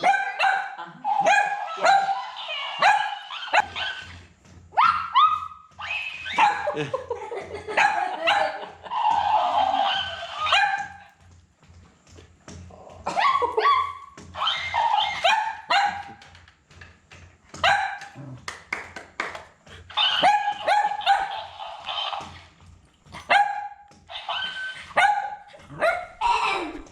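Cavalier King Charles Spaniel puppies yipping, barking and whining in rapid clusters, with a short lull about eleven seconds in.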